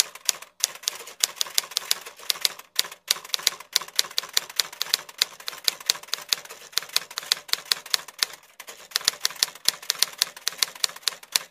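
Typewriter sound effect: rapid, uneven clacking of typewriter keys, several strokes a second, with short breaks about half a second in, near three seconds and around eight and a half seconds.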